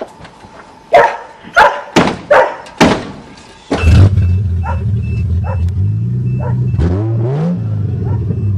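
A dog barks five times in quick succession. Then the 1982 Toyota Cressida's engine starts and runs steadily, revving up briefly near the end.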